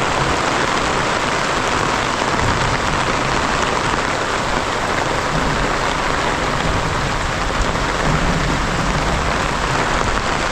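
Heavy rain pouring down steadily, an even, dense hiss of falling drops.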